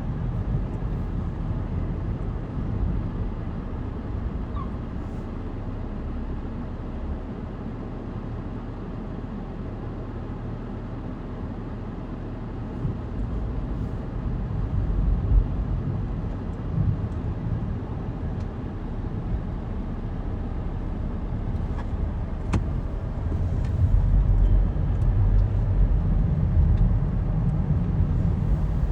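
Strong wind buffeting the microphone: a low, uneven rumble that rises and falls in gusts, strongest near the end.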